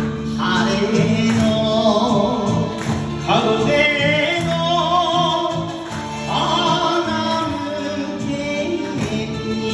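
Instrumental intro of an enka song: a wavering lead melody carried over the backing band, before the vocal comes in.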